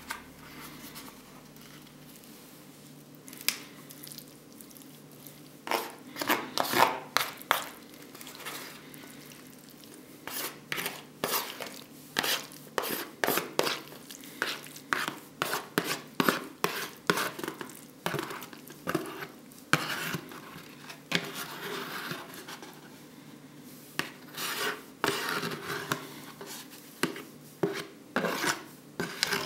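Metal spoon scraping and clicking against a plastic ready-meal tray as thick vegetable curry is scooped out onto rice on a plate, in a run of short scrapes that starts a few seconds in.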